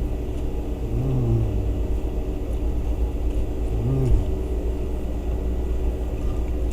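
Steady low rumble of a car engine idling, heard from inside the cabin, with two short hums about a second in and again about four seconds in.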